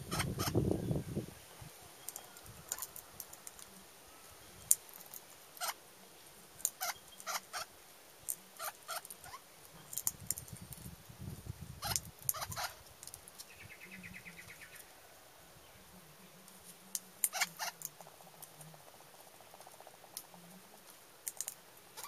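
Male Australian king parrot cracking sunflower seeds in its beak and pecking seeds off a wooden rail: irregular sharp clicks and cracks, often in quick pairs or small clusters. There is a short low rumble at the very start.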